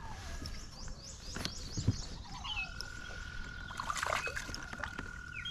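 Hooked smallmouth bass splashing at the surface beside a kayak as it is fought in, with a few sharp knocks and a steady high-pitched tone lasting about three seconds from midway.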